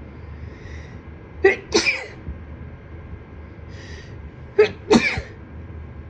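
A person sneezing twice from allergies, about three seconds apart. Each sneeze comes as two quick bursts and is preceded by a short breath in.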